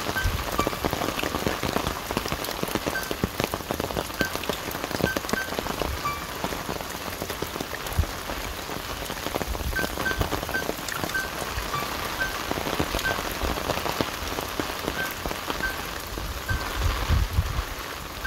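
Rain falling on leaves: a dense, even spray of drop hits. Short high peeps sound now and then over it.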